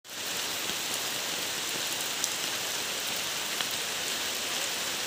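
Rain falling steadily: an even hiss with a few faint ticks of single drops.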